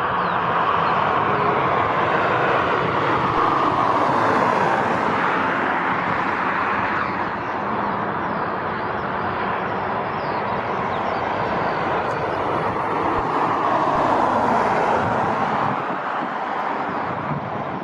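Airbus A330F freighter's jet engines running at taxi power: a steady rushing hum with a faint whine, swelling and easing twice as the aircraft rolls past.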